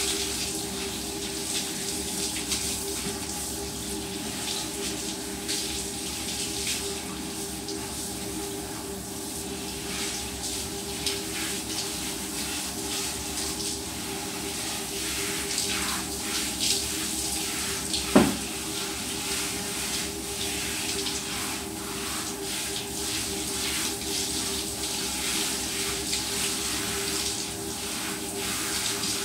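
Handheld shower head spraying water over a dog's coat and onto a tiled floor: a steady rush of water with a steady hum underneath. A single short squeak about eighteen seconds in.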